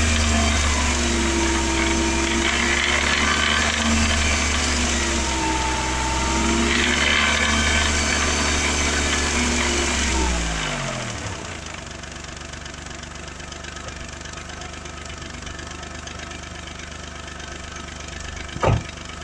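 Smart 450's three-cylinder engine held at raised revs, about 3000 rpm, its pitch wavering slightly, then dropping back to idle about ten seconds in and idling on; the engine is making a noise that the owner is checking against its oil pressure. A single sharp click near the end.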